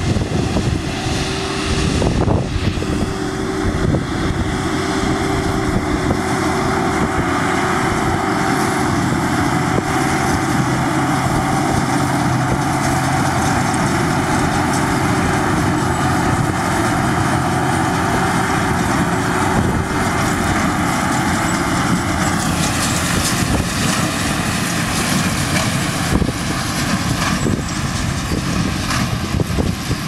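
Fendt 942 tractor's six-cylinder diesel engine running steadily, pulling a Massey Ferguson 2290 big square baler at work in the field, with the baler's machinery adding to the steady drone and a constant whine.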